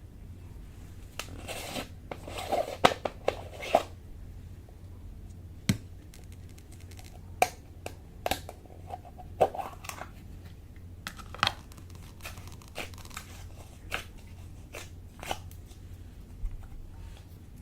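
Slime being squeezed and stretched by hand, giving scattered sharp pops and clicks with short crackly stretches, the busiest run about two to four seconds in, over a low steady hum.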